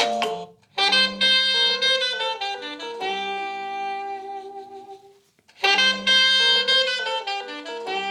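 A Huawei P50 Pro ringtone: a short melody of held notes, played through once and then starting over after a brief gap about five and a half seconds in.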